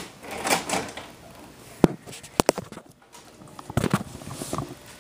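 A VCR starting a VHS tape, heard through rustling handling noise. There is one sharp click nearly two seconds in and two quick clicks half a second later, as the machine engages and play comes on.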